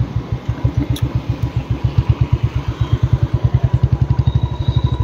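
Motorcycle engine running at low revs with an even pulsing beat, about ten beats a second.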